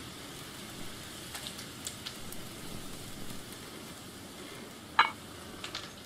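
Wood fire crackling under a simmering pot, with scattered sharp pops over a steady hiss. About five seconds in, a metal pot lid is set down on the pot with a single ringing clank.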